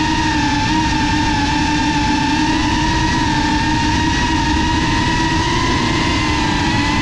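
GEPRC CineLog 6S FPV drone's motors and propellers whining at a nearly steady pitch, throttle held almost constant.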